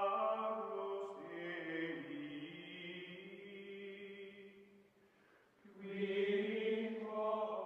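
Outro music of choir-like voices holding long chanting notes. The chant fades down about five seconds in and swells back a second later.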